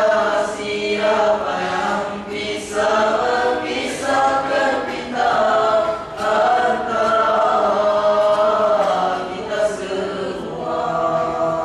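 A group of boys singing a selawat nasyid together into microphones, in long held phrases with short breaks between them.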